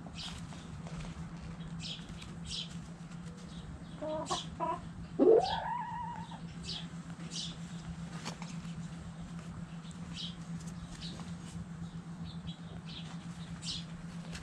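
Chickens in a coop: two short clucks about four seconds in, then a loud call rising sharply in pitch and held for about a second. Short high chirps repeat throughout over a steady low hum.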